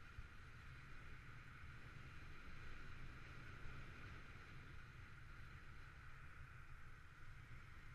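Faint, steady riding noise of an electric bike on wet pavement: a low rumble of wind on the microphone with a steady hiss higher up.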